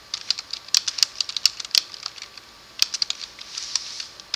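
Computer keyboard typing: a quick run of irregular keystrokes, a pause of about a second partway through, then another run of keys.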